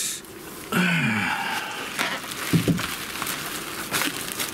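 Bubble wrap crinkling and crackling irregularly as hands handle and start to unwrap a boxed unit, from about two seconds in. Just before, near one second in, a man's voice gives a short falling hum, the loudest sound here.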